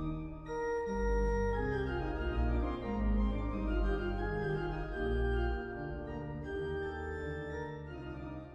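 Background music of sustained organ chords over a deep bass, the chords changing every second or so, fading down near the end.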